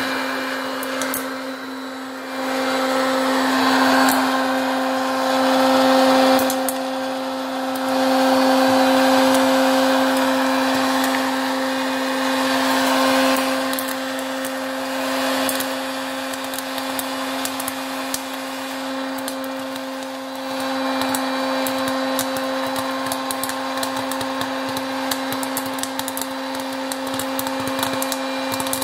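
Hot air popcorn maker's fan running with a steady hum and rush of air while corn kernels pop, the sharp pops growing much more frequent in the last third as popped corn is blown out of the chute.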